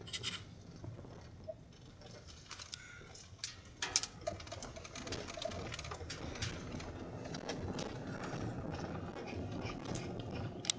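Inside a moving car on a snowy road: a low rumble of road and engine noise with scattered sharp clicks and taps, the loudest about four seconds in. The rumble grows louder from about halfway through.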